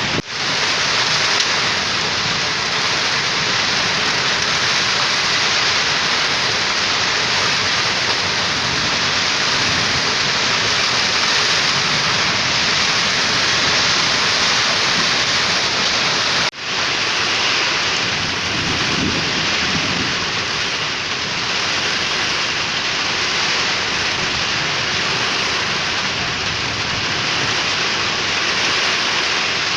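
Heavy storm rain pouring steadily, a dense even hiss, briefly cut off just after the start and again about halfway through.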